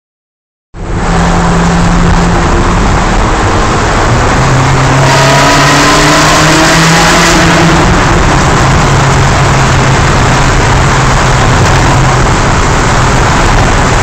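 Ferrari 360 Spyder's V8 engine running loud inside a road tunnel, heard from the cabin under heavy wind and road noise. Its note holds steady apart from a few seconds midway where it climbs a little in pitch as the car accelerates.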